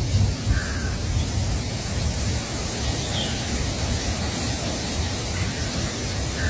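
Steady wind noise buffeting the microphone, with a gusty low rumble. A few faint, short high chirps come through about half a second in, about three seconds in and near the end.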